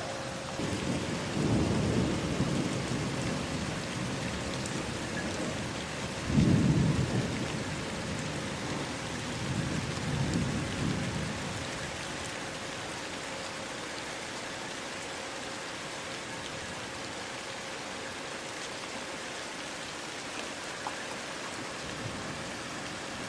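Steady rain with thunder rolling through it. A long rumble starts about a second in, a louder, sharper clap comes around six seconds in, and a weaker rumble follows near ten seconds. After that there is only rain.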